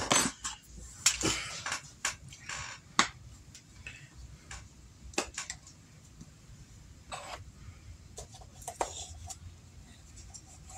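Kitchen handling noises: a plastic mixing bowl knocked down onto the table at the start, then scattered light clicks and taps as a plastic spice shaker is handled and its cap worked open.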